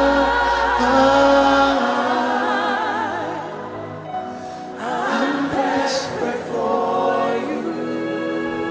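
Live gospel worship music: held chords under wordless singing with wide vibrato, rising into wavering vocal runs a few seconds in. The deep bass drone drops out about two seconds in.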